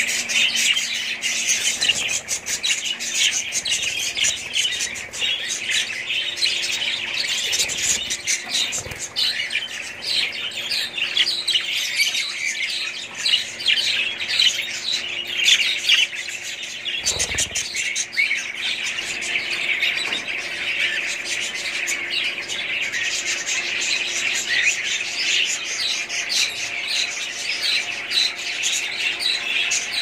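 A flock of budgerigars chattering, a dense, unbroken mix of high chirps, warbles and squawks. A faint steady hum lies underneath, and a few dull bumps come about a third of the way in and past the middle.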